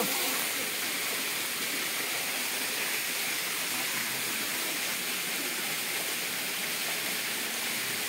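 Steady rush of flowing water, an even hiss that holds constant throughout.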